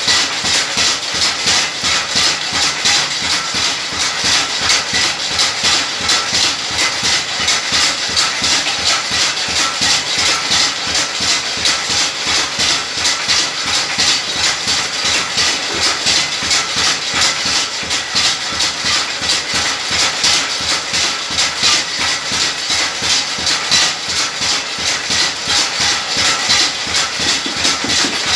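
Motor-driven chilli pounding machine running: a flywheel and crank drive a metal pestle up and down into a metal bowl of dried chillies, a steady rhythm of pounding strokes at about two a second as the chillies are beaten to powder.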